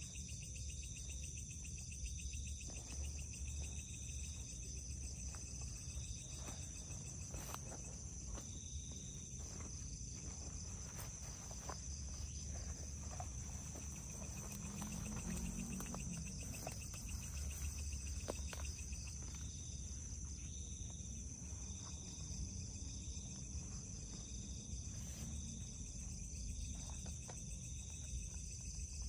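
Night insects, crickets among them, calling without pause: a steady high trill with a second call pulsing about once a second. Scattered faint clicks and rustles sound over them.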